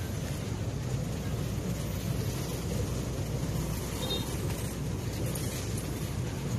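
Steady outdoor urban background noise, mostly a low rumble, with no distinct sound standing out.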